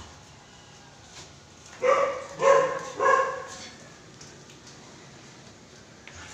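Excited Siberian husky barking three times in quick succession, each bark short and pitched, about half a second apart.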